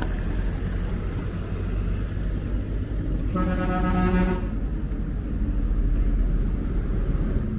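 Steady low rumble of a car on the move. A vehicle horn sounds once, for about a second, a little before the middle.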